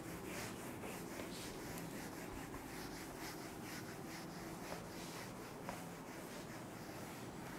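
Handheld whiteboard eraser wiping a whiteboard: a faint hiss of quick, repeated rubbing strokes.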